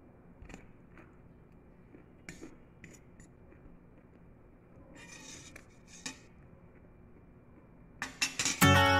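A metal fork and spoon clink and scrape lightly against a dinner plate a few times, with small separate taps. Near the end, loud strummed guitar music starts abruptly.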